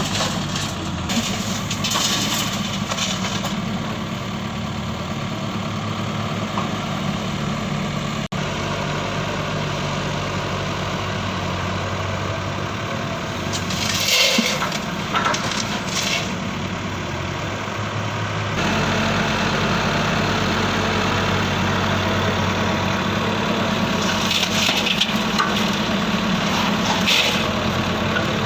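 Radio-controlled construction models (Huina excavators and model trucks) working: a steady engine-like hum, with a few short bursts of crunching or scraping about halfway through and again near the end. The hum gets louder about two-thirds of the way in.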